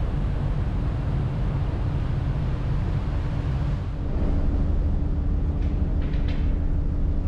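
Steady rumble and hiss of the M/V Northern Adventure ferry under way, heard on board, with a low steady hum; about four seconds in it changes to a deeper, steadier drone with less hiss, and a few faint clicks come around six seconds in.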